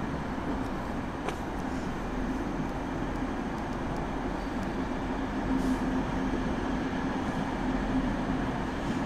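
Two coupled DB class 442 Talent 2 electric multiple units rolling slowly past: a steady rumble with a low hum, and a couple of faint clicks.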